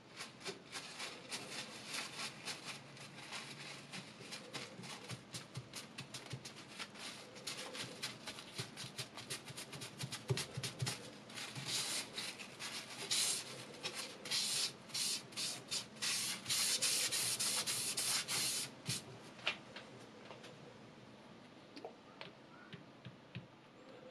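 Paper towel rubbed quickly back and forth over an oil whetstone held in a guided knife-sharpening system's stone holder, wiping it down. The rubbing grows louder, with longer strokes, towards the middle and dies away in the last few seconds.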